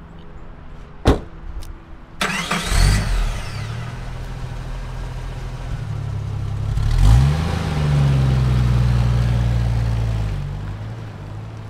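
A car door shutting, then a car engine starting, idling, revving up and driving away, fading out near the end.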